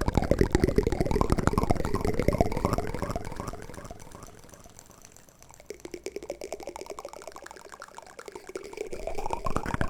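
Wooden spoon ASMR trigger sounds: a dense run of rapid clicks with a wet, swishing quality. It fades down to a low point around the middle and builds up again near the end.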